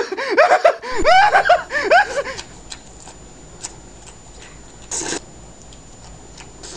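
A man's wordless vocal imitation, its pitch rising and falling in quick arcs several times a second, for the first couple of seconds. Then quieter, with a few small clicks and a short slurp of noodles being sucked into the mouth about five seconds in, and another slurp starting at the very end.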